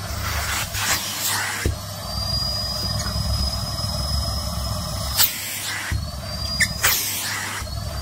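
Cylinder vacuum cleaner running steadily while its hose nozzle sucks and scrapes over a shiny nylon puffer jacket, with rustling and several sharp crinkles of the fabric. A thin high whistle rises slightly in pitch from about two to five seconds in, and again near seven seconds.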